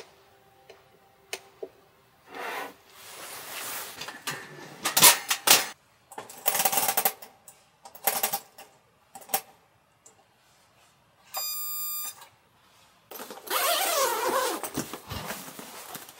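Clicks, knocks and metallic rattles from working the controls of a round kerosene heater, with a short high tone just past the middle. Near the end, a longer rasp as a padded round storage bag is unzipped.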